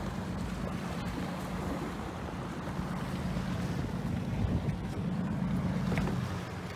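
Wind and water around a sportfishing boat at sea, over a steady low hum.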